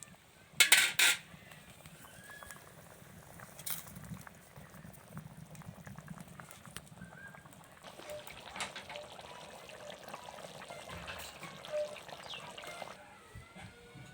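Cooking sounds in a kitchen: a quick run of sharp knocks about a second in, then liquid bubbling in a pot for several seconds before it stops.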